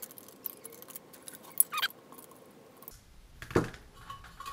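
Small metal clicks and scrapes of a screwdriver working the screws on a stamp vending machine's metal front, with a sharp click and a short squeak near the middle. A louder knock comes about three and a half seconds in as the parts are handled.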